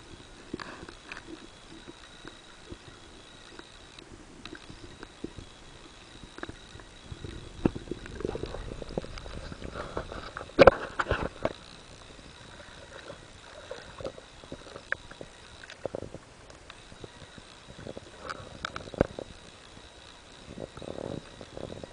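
Muffled underwater sound picked up by a camera in its waterproof housing: scattered clicks and knocks, a louder knock about halfway through, over a faint steady high tone.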